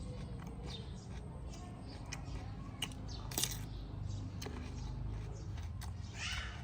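Eating sounds: scattered small clicks and taps, a short noisy burst about halfway through and a brief squeak near the end, over a low steady hum.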